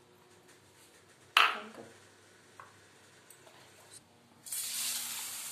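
A stainless-steel bowl of rice is set down on a stone counter with one sharp clank and a brief ring about a second and a half in, followed by a few small clicks. About four and a half seconds in, a kitchen tap starts running steadily.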